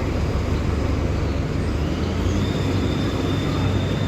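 Mercedes-Benz OF-1724L bus's six-cylinder diesel engine running with a steady rumble; a thin high whine comes in about two seconds in and holds.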